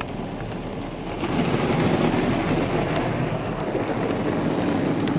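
Belanger Kondor KL2 touchless car wash spraying surface protectant onto a car, the spray drumming on the roof and glass and heard from inside the cabin. It grows louder about a second in and stays steady.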